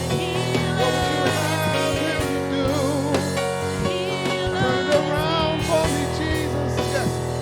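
Church band playing worship music: held keyboard-like chords under drums, with a wavering melodic lead line over them.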